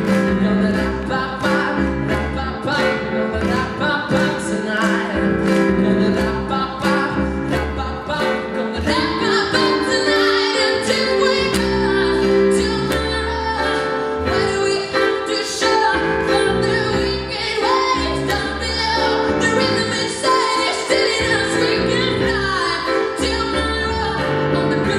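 Pop song performed live: a man singing into a microphone over a band with a steady beat.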